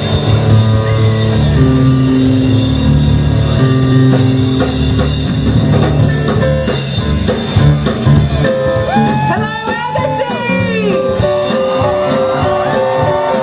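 Rock music with electric guitar and drums; a singing voice comes in about nine seconds in.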